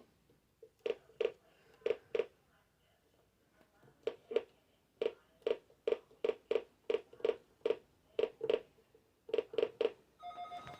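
A run of about twenty short clicks or taps, irregularly spaced, each with a low knocking note. They come in a few quick groups with a pause of about two seconds near the start.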